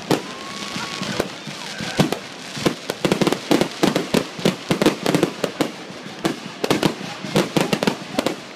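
Aerial fireworks going off: a few separate bangs, then from about three seconds in a rapid run of bangs and crackles.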